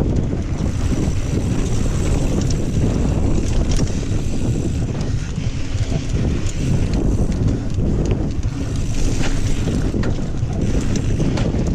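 Wind buffeting an action camera's microphone as a Kona Honzo ST hardtail mountain bike rolls fast down dirt singletrack. The knobby tyres hiss over the trail, with scattered clicks and knocks from the bike over the bumps.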